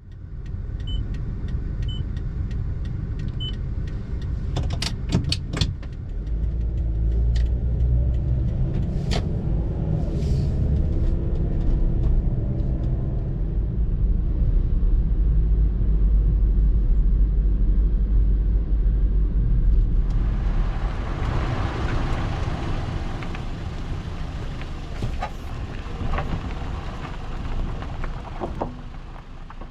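Toyota Porte compact car being driven, heard from inside: a steady engine and road rumble, with a few light ticks early on and some clicks. About twenty seconds in, the tyre and road noise turns louder and hissier.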